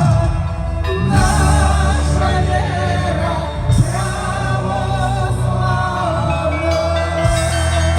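Russian Orthodox church bells ringing: overlapping sustained tones, with fresh strikes about a second in, near the middle and near the end.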